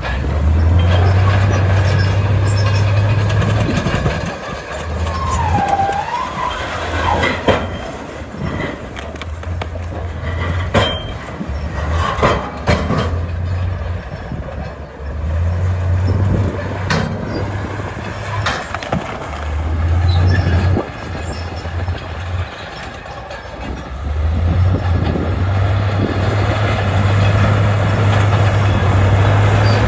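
Tracked bulldozer at work: its diesel engine drones in surges that come and go every few seconds, with scattered metallic clanks and knocks, and a brief squeal about six seconds in.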